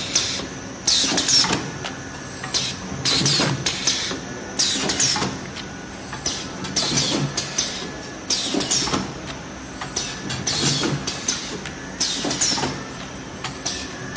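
PET-coated paper cake cup making machine running through its forming cycle, with a burst of hissing and clattering about every two seconds over a steady mechanical hum.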